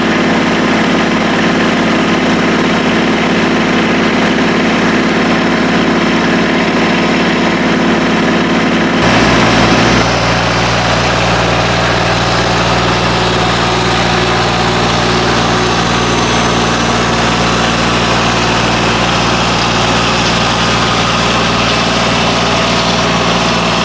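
Tractor engine running steadily; about nine seconds in, its note changes suddenly to a different steady pitch.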